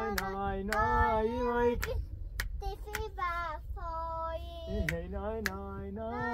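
A voice singing in long, wavering held notes, with scattered hand claps.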